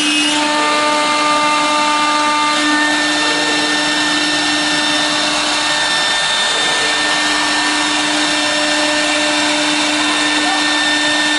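A 1325 CNC router's spindle milling a clear acrylic sheet: a steady high-pitched whine over the hiss of the cutter chipping the plastic, running loud and unbroken.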